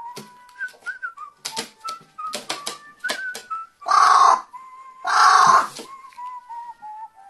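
Pet carrion crow giving two loud "wow" calls about a second apart, each about half a second long, in the middle of the stretch. Before them comes a run of short clicks and rustles.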